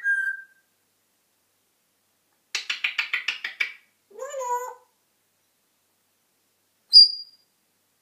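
African grey parrot vocalising: a short whistle, then about three seconds in a quick run of about a dozen rattling clicks, followed by a short wavering call, and near the end a sharp high whistle.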